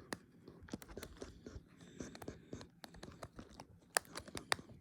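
Irregular plastic clicks and scraping as a phone's back cover is handled and pressed against the handset, with two sharper clicks near the end. The cover is not seating, the battery under it said to be too bloated.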